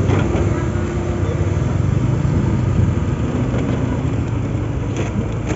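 Honda ADV 160 scooter's single-cylinder engine running steadily at low speed, with other motorbike engines close by. A couple of short clicks about five seconds in.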